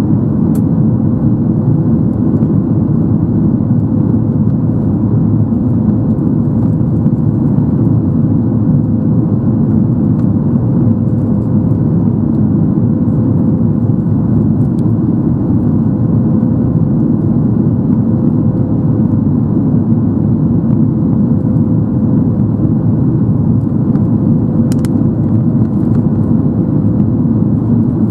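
Steady cabin noise inside a Boeing 737 MAX 8 in flight after takeoff: the CFM LEAP-1B engines running and the rush of air, a loud even noise with a faint steady hum.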